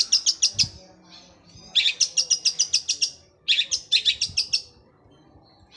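Long-tailed shrike (cendet) singing in three rapid, even trills of about ten high notes a second, a sparrow-like chatter delivered like a sewing machine.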